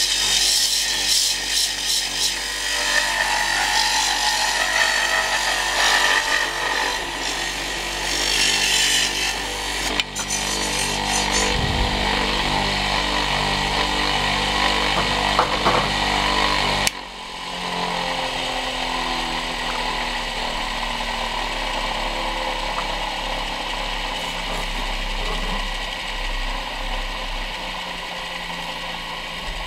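Homemade mini wood lathe running while a hand-held cutting tool scrapes a spinning wooden blank. About halfway through the scraping stops abruptly, leaving only the lathe's motor running steadily.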